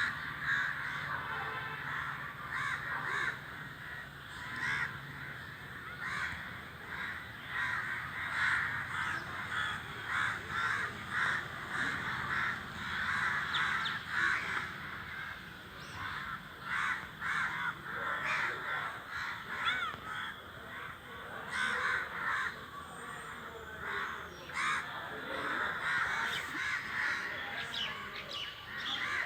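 A flock of crows cawing, many harsh caws overlapping in a continuous chorus.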